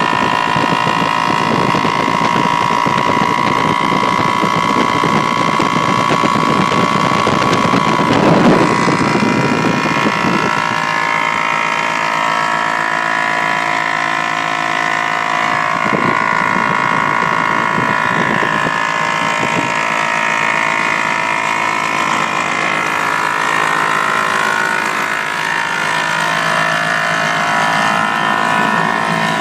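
Zanzottera MZ 34 single-cylinder two-stroke aircraft engine running on a ground run-up under its full cowling. It runs loud and rough, surges about eight seconds in, then settles from about ten seconds in to a lower, steadier speed.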